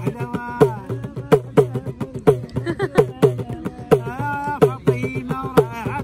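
A man sings short wavering phrases over a steady rhythm beaten by hand on a small goblet drum. The drum strokes come several times a second, each with a low ringing note.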